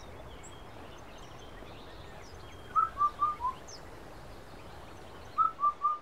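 Quiet background with faint high bird chirps. Twice, about two and a half seconds apart, it is broken by a loud phrase of four short whistled notes that step down in pitch.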